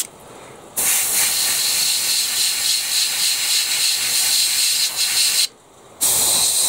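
Airbrush spraying paint at low air pressure: a steady hiss that cuts out twice, for under a second at the start and for about half a second near the end.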